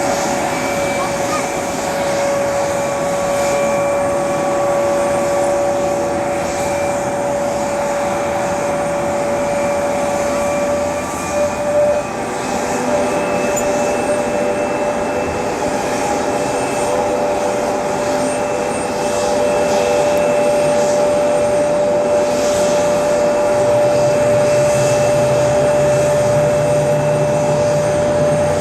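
Turbofan engines of an Embraer E-Jet airliner (GE CF34) running on the ground. A steady high whine sits over a rushing noise. About twenty seconds in the sound grows a little louder and a low hum joins it.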